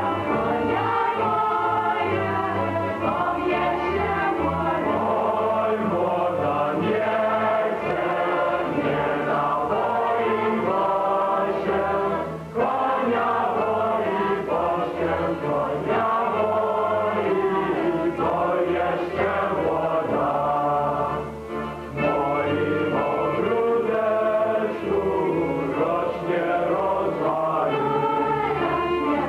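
A choir singing continuously, with brief breaks about twelve and twenty-one seconds in, likely a Polish folk song. The sound is dull and lacks its highest tones, as in an old TV broadcast recording.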